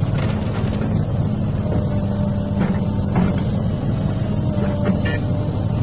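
XCMG excavator's diesel engine running steadily under load, with a few short clanks and knocks, the sharpest about five seconds in.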